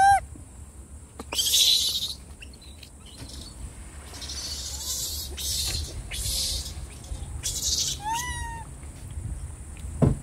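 Macaques calling: a short, wavering, whimper-like coo at the start and another rising-then-falling coo about eight seconds in. Several short bursts of high hiss come between them, and a sharp thump near the end.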